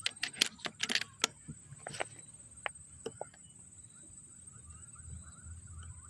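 A quick cluster of sharp metallic clicks and rattles in the first second or so, then a few scattered single clicks. After about four seconds come faint bird chirps over a steady high-pitched whine.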